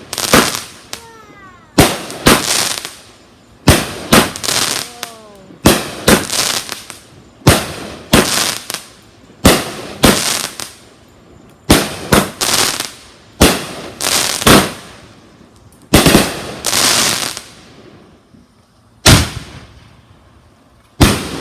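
Fireworks going off in quick succession: about twenty sharp bangs, often in pairs, each trailing off into crackle, with a short lull about three-quarters of the way through.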